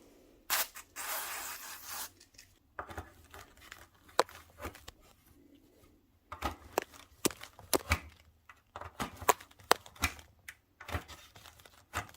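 A ripping, rustling noise lasting about a second and a half near the start, then a run of irregular sharp clicks and knocks.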